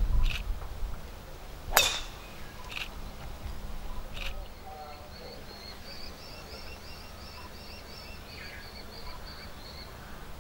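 A golf club strikes the ball off the tee with one sharp crack a little under two seconds in. Later a bird calls in a quick, high, repeated chirping series.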